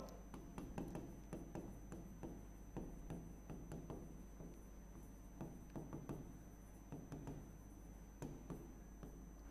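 Faint irregular taps and scratches of a pen writing on an interactive display's glass screen, a few small clicks a second.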